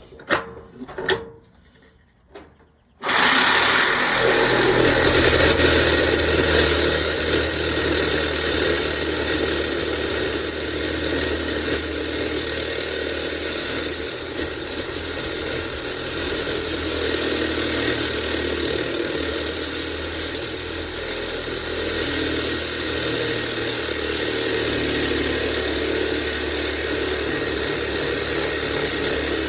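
An electric power cutting tool starting up and cutting steadily through the steel bolts that hold a pickup bed to its frame. A few clicks come first, then the tool comes on abruptly about three seconds in and runs on at a steady level.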